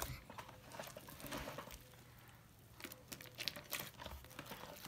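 Wet, sticky glue slime squelching and crackling as a hand kneads and pulls it in a plastic bowl: faint, irregular little pops and crackles that bunch up about a second in and again near the end.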